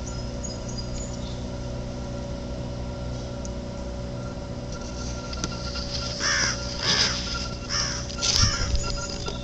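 A crow caws four times in quick succession, starting about six seconds in. Under it, the steady hum of a nearby pumping station runs throughout.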